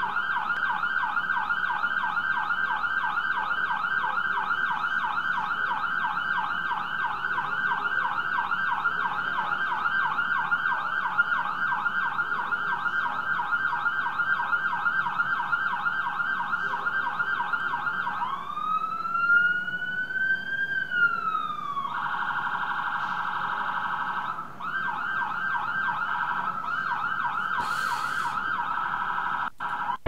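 US ambulance electronic siren, sounding a fast yelp. About 18 seconds in it switches to a single slow wail that rises and falls, then gives a steady tone for a couple of seconds, then returns to the fast yelp.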